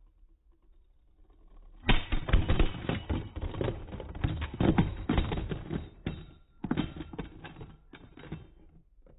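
Beyblade spinning tops clashing in a plastic stadium, one bursting apart and its pieces clattering and skittering across the floor: a dense run of rapid clicks and rattles starting about two seconds in, with a brief break about six seconds in.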